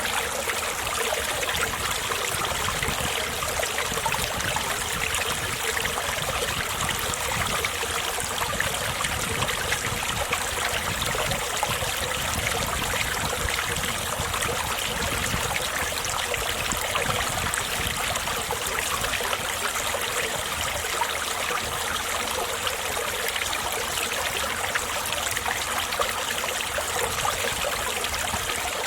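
Mountain valley stream running steadily over rocks, a constant rushing and trickling of water.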